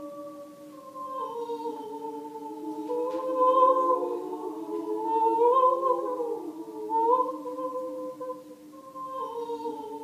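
A woman singing wordless held notes, several vocal tones sounding at once like a small choir. The chord steps down in pitch about a second in and again near the end, with a louder swell in the middle.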